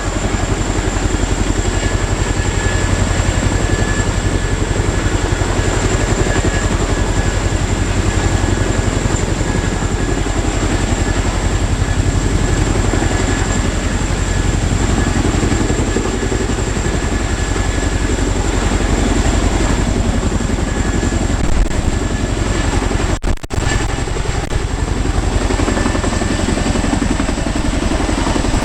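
Military transport helicopter running close by, loud and steady: a rapid rotor beat under a high turbine whine, with a brief dropout near the end.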